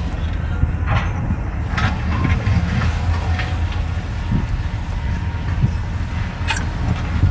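Heavy diesel excavator engine running steadily, with several sharp clanks and knocks of steel and stone at irregular moments.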